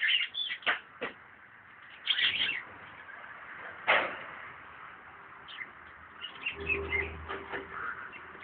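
Birds chirping in short bursts: a cluster of calls at the start, another about two seconds in, a single sharp call near four seconds, and a longer run of chirps near the end.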